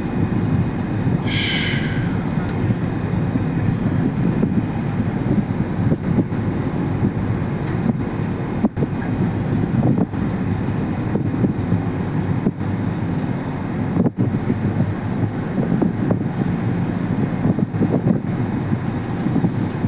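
Steady low rumble of a passenger ferry's engines and thrusters while berthing, with wind on the microphone. A brief high-pitched sound about a second and a half in.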